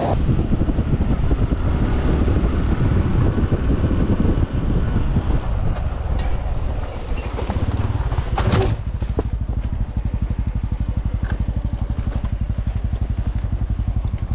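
Small motorcycle engine running with a low, rapid, even pulse, which grows steadier and more regular in the second half. A brief louder rush cuts across it about eight and a half seconds in.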